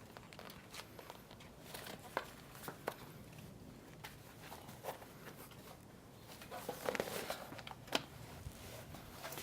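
Faint handling sounds of a bicycle tire and inner tube: scattered light clicks and brief rubbery rustles as the tire is peeled back and the tube's valve is fitted through the rim's valve hole, with a slightly busier patch of rustling near the end.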